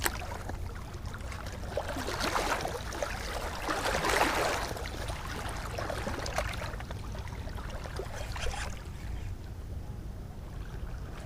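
Outdoor ambience on open water: a steady low wind rumble on the microphone with soft water sounds, swelling briefly about two and four seconds in.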